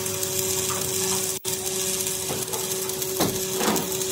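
Metal fabrication shop noise: a steady machine hum under a constant hiss, with several short knocks in the second half.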